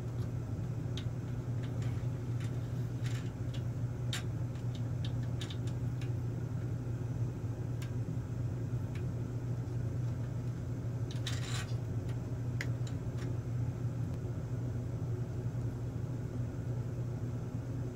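Light handling sounds of a rubber GT2 timing belt being threaded through a 3D-printed plastic carriage: scattered faint clicks and a brief rustle about eleven seconds in, over a steady low background hum.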